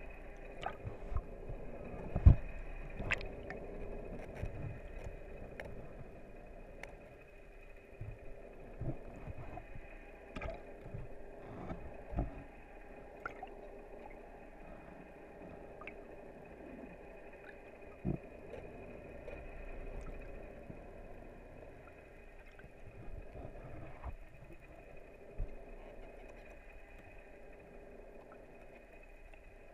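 Muffled underwater sound picked up by a camera in its waterproof housing: a steady hum with irregular knocks and bumps against the housing, the sharpest about two seconds in.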